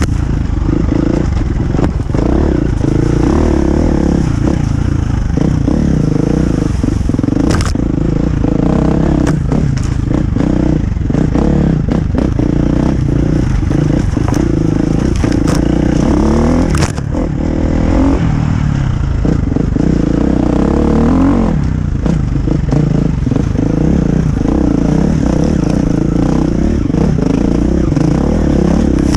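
Husqvarna FE350 four-stroke single-cylinder enduro motorcycle engine running under load, its pitch rising and falling with the throttle on a slow, stony trail. A few sharp knocks come from the bike hitting rocks, two of them about eight and seventeen seconds in.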